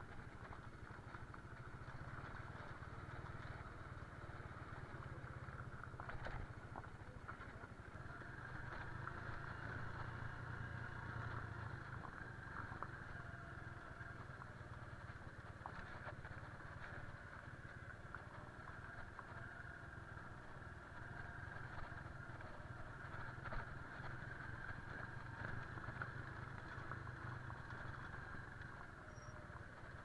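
Motorcycle engine running steadily at low speed while the bike is ridden slowly over a gravel and dirt track, with occasional light clicks.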